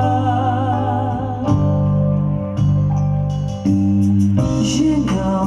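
Music: a vocal ensemble's slow song. Sustained chords change every second or so, with a held note sung with vibrato in the first second and a half and a lower voice moving near the end.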